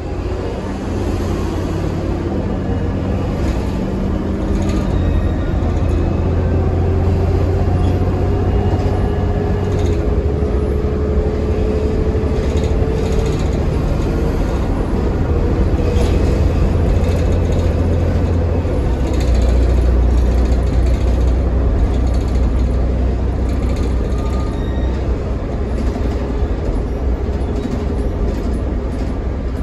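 Inside the cabin of a New Flyer D60LFR articulated diesel bus under way: the Cummins ISL9 diesel's steady low rumble with road noise and scattered rattles. Over the first half a thin whine rises slowly in pitch as the bus gathers speed, and the rumble deepens a little past the middle.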